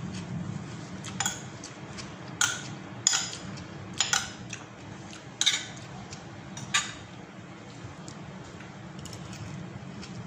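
Metal spoon clinking and scraping against a ceramic plate of rice: about six sharp clinks over the first seven seconds, then quieter.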